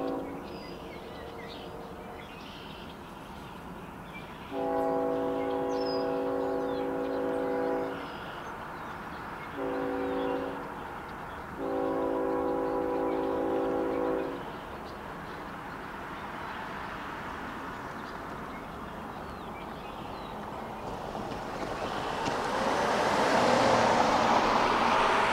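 Freight locomotive's multi-chime air horn blowing a long blast, a short one and another long one, the pattern of a grade-crossing horn signal. Near the end the noise of the approaching train's engines and wheels builds up and becomes the loudest sound.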